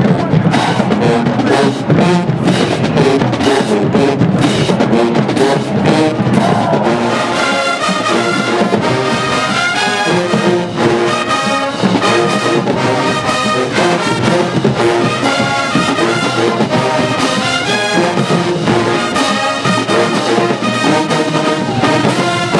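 College marching band playing: brass section with sousaphones over steady drum strokes, loud throughout. About seven seconds in the horns settle into clearer held, repeated chords.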